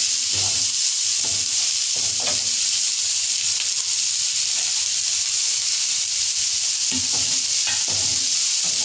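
Chopped onions sizzling in hot mustard oil in a nonstick kadhai on a low flame, while a wooden spatula scrapes and stirs them in repeated strokes. The stirring pauses for a few seconds midway as more onion is tipped into the pan.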